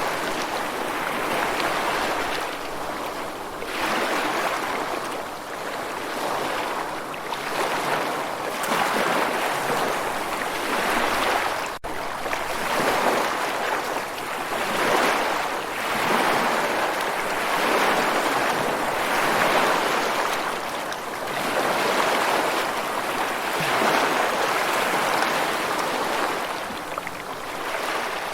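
Ocean surf: waves washing in and drawing back, the rush of water swelling and ebbing every two to three seconds, with a momentary dropout about twelve seconds in.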